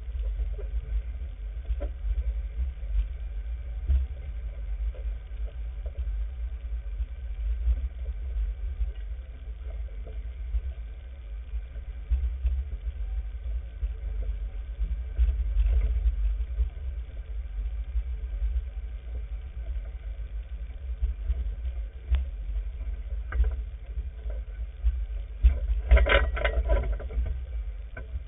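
Off-road vehicle driving slowly over a rocky dirt trail: a steady low engine and drivetrain rumble with occasional knocks from the rough ground. About two seconds before the end there is a brief, louder, higher-pitched sound.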